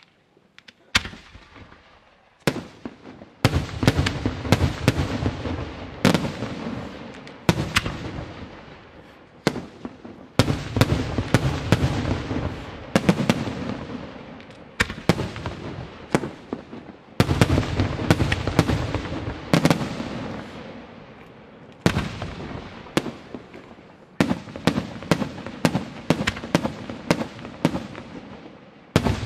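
Aerial firework shells bursting in a display, starting about a second in: many sharp bangs in quick succession, with stretches of dense rumbling crackle that swell and fade between the volleys.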